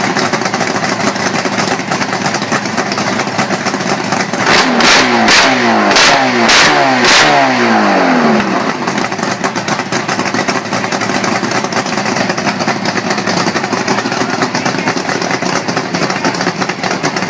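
Two-stroke eight-cylinder engine running steadily, revved in five quick blips around the middle, each falling back to idle.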